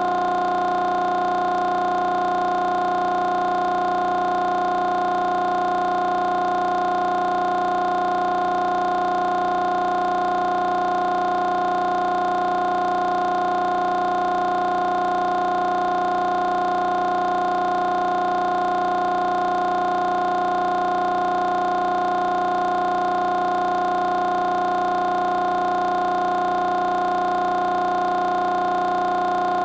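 A single steady tone with overtones, holding one pitch without any change.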